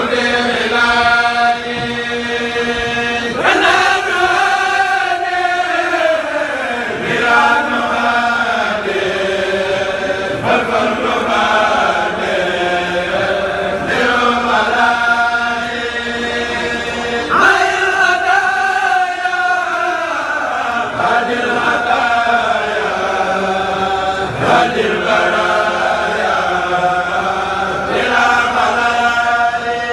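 A group of men chanting Mouride devotional poems (xassida) in unison from books into microphones. The chant moves in long held, melismatic phrases of a few seconds each, with a short break between phrases.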